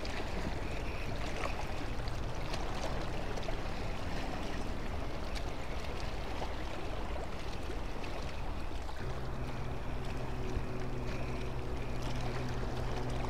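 Steady rush of water and wind at a harbour's edge. A low, even engine hum comes in about nine seconds in and keeps going.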